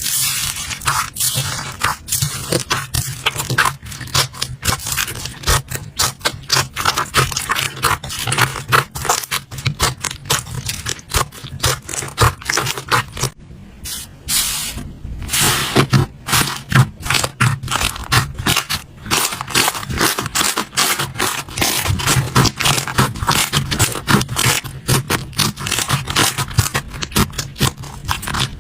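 Slime being squeezed and worked by hand, giving a dense, continuous run of small clicks, crackles and sticky pops, with a brief lull about halfway through.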